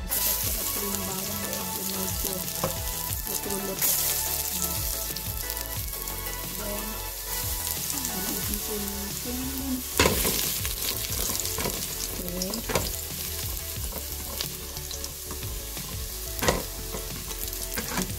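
Minced garlic sizzling in hot oil in a stainless steel pot, stirred with a spatula. The spatula knocks sharply against the pot a few times, loudest about halfway through.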